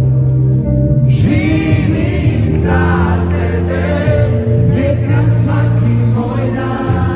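A worship song: many voices singing together over an accompaniment with steady low held notes.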